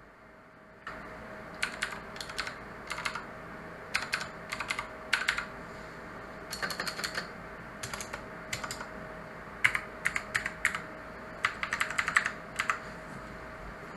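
Typing on a mechanical keyboard with clicky blue switches: quick runs of sharp key clicks with short pauses between them. The clicks start a little over a second in and stop near the end.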